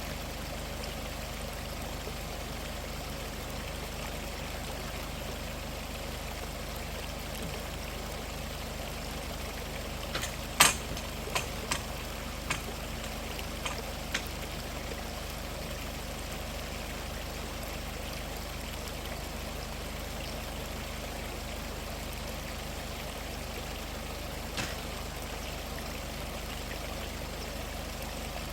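Valley stream running steadily, with a quick run of sharp clicks or knocks about ten seconds in and a single one near the end.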